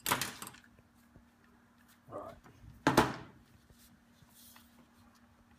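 A few handling knocks and bumps on a workbench, the loudest about three seconds in as the rangefinder is set down on the bench, over a faint steady low hum.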